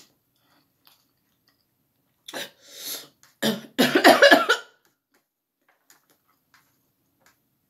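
A person coughing from the burn of extremely spicy noodles: a couple of short bursts just over two seconds in, then a louder, harsher coughing fit about a second later.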